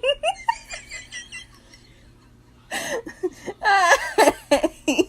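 A person laughing: quick short giggles at first, then, after a brief lull, louder bursts of laughter about three seconds in.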